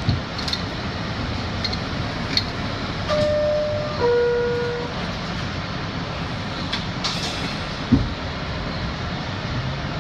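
New York City Subway R62A car with a steady background rumble. About three seconds in, the two-tone door chime sounds, a higher tone stepping down to a lower one. A short sharp thump follows near the end.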